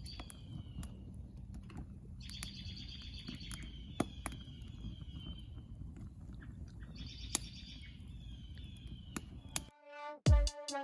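A songbird singing three phrases, each a high trill that slides a little lower in pitch, over a low background rumble with a few sharp clicks. Music with a strong beat cuts in near the end.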